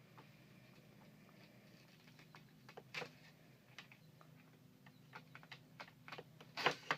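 Scattered light clicks and taps: one about three seconds in, then a cluster of them near the end, the loudest just before it ends. Under them runs a faint steady low hum.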